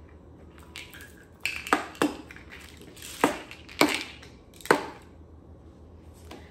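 Plastic prescription pill bottles being set down one after another on a table: about six sharp knocks, the first about a second and a half in and the last near five seconds in.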